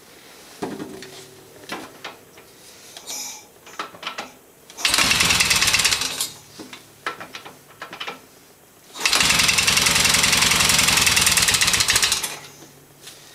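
Electric starter cranking a Yamaha XS650's parallel-twin engine in two tries, one of about a second and then one of about three seconds, each stopping suddenly. Light clicks and handling noises come between the tries.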